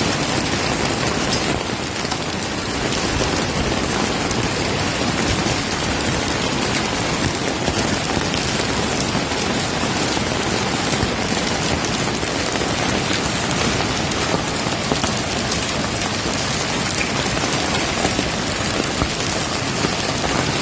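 Heavy rain falling steadily, a dense even hiss dotted with scattered sharp ticks of impacts on hard surfaces.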